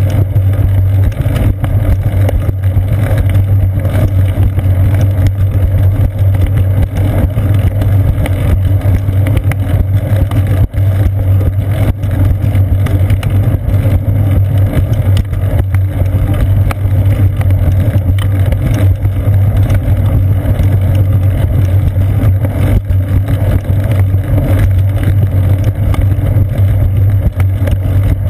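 Bicycle rolling along a concrete path, picked up by a GoPro Hero 2 mounted on the seat post: a loud, steady low rumble of tyre and frame vibration carried into the camera.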